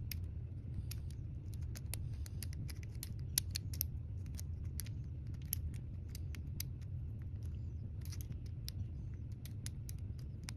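Metal lock pick raking inside a Kwikset pin-tumbler lock: irregular sharp little clicks and scrapes as the pick works the pins, over a low steady hum.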